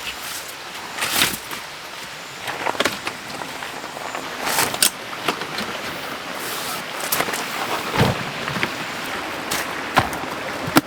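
Steady hiss of rain, with about half a dozen irregular knocks and clatters of objects being handled.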